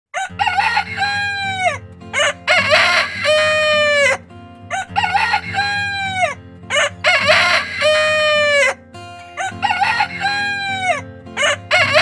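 Roosters crowing: five long cock-a-doodle-doo crows, one about every two and a half seconds, with a sixth starting near the end.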